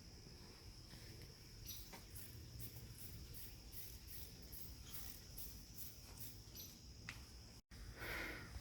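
Faint, steady high-pitched trilling of crickets or similar summer insects, with a few light rustles. Near the end the sound drops out for an instant, then a louder rustle follows.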